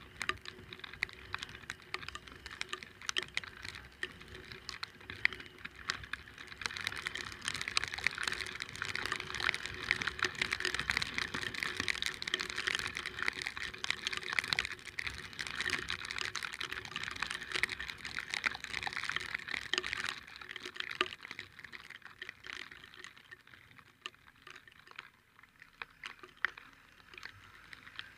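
Rain and splashing water: a dense hiss of pattering with many small ticks, like raindrops striking the camera. It swells about a quarter of the way in and eases off over the last third. A faint steady hum runs underneath.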